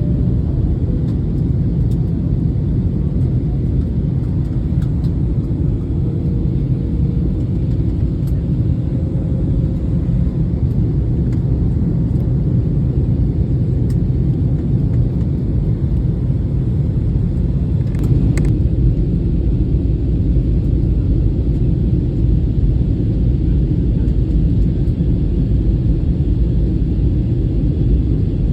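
Steady low rumble of engine and air noise inside a passenger airliner's cabin, with a faint click about two-thirds of the way through.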